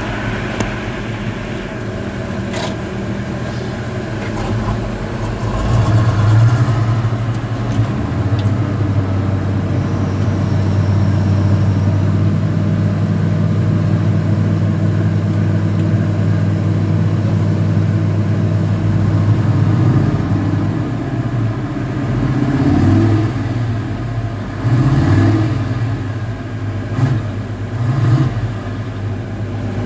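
Excavator engine running steadily, swelling louder several times as it works under load, with a few short knocks.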